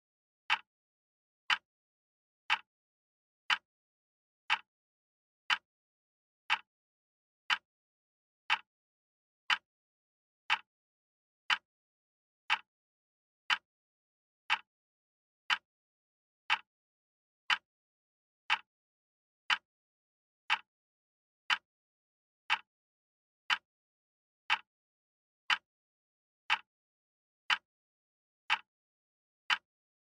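Wall clock ticking steadily once a second: short, sharp clicks with silence between them.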